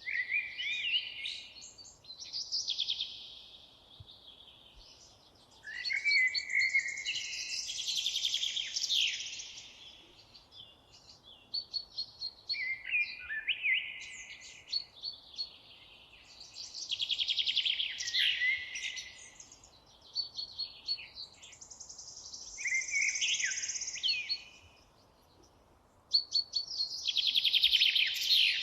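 Songbirds singing in a forest: bouts of high, trilling and warbling song a few seconds long, about six of them, with short pauses between, over a faint steady background hush.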